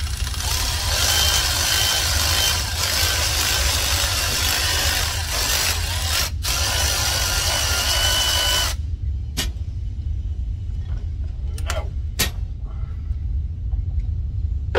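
Cordless electric ratchet running in two long spells on a bolt behind a Jeep's power steering pump pulley, pausing briefly about six seconds in and cutting off at about nine seconds. A few light metallic clicks follow as the tool is handled.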